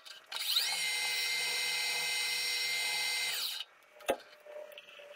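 Metal lathe spindle motor starting with a rising whine, running steadily for about three seconds, then winding down quickly and stopping. A single sharp click follows about a second later.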